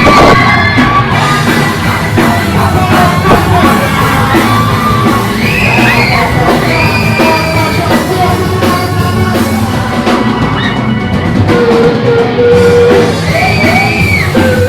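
Live band playing a rock-style gospel song, with drum kit, electric guitars, bass and keyboard under singing voices that hold long, bending notes.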